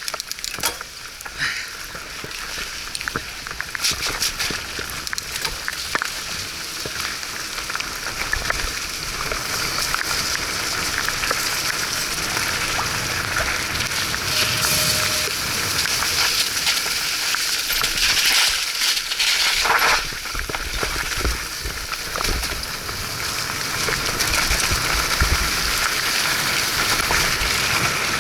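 Mountain bike riding through wet mud in the rain: a steady hiss of rain and wet tyres that slowly grows louder, with scattered short knocks.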